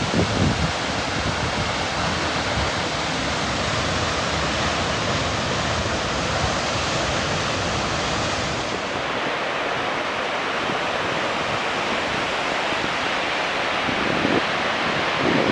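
Steady rushing of a large waterfall, with wind buffeting the microphone near the end.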